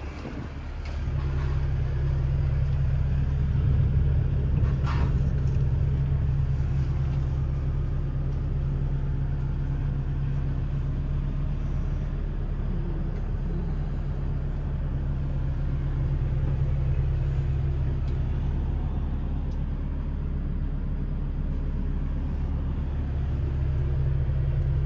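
Case CX160D hydraulic excavator's 112 hp Tier 4 diesel engine running steadily, heard from inside the cab as a low, even hum. There is a short click about five seconds in.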